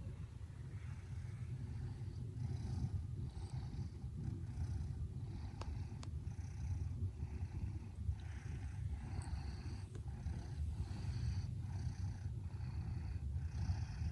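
Red smoke Maine Coon purring very gently while asleep: a soft, steady low rumble, with a breathy hiss that swells with each breath.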